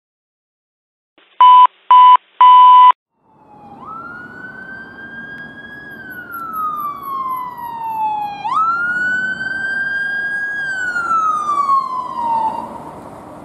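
Three short, very loud steady beeps about a second and a half in. Then a paramedic ambulance's siren wails, rising and falling twice, over traffic noise, and fades near the end.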